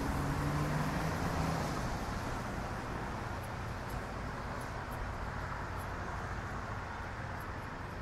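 A car driving past on the road and fading away, its engine hum dying out over the first couple of seconds, leaving a steady wash of road traffic noise.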